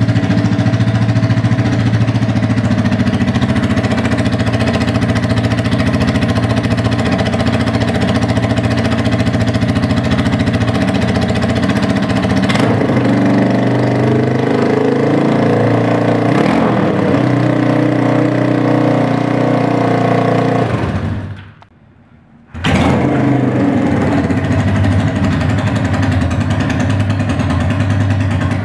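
Yamaha XS360's parallel-twin four-stroke engine running steadily through its chrome exhaust, its note shifting a little under halfway through. The sound drops out for about a second after two-thirds of the way, then returns.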